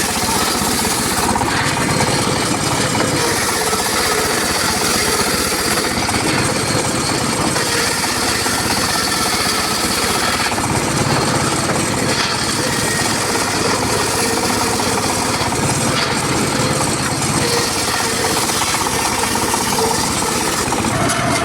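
Homemade circular saw running and cutting gmelina wood, its sound shifting again and again as the blade bites into each piece.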